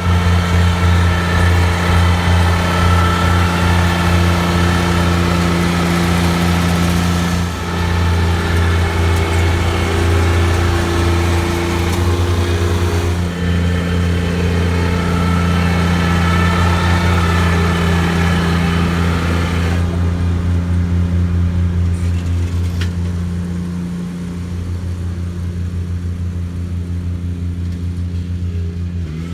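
Engine of a lawn renovation machine running steadily while working the turf. About two-thirds of the way through, the higher clatter drops away and it goes a little quieter.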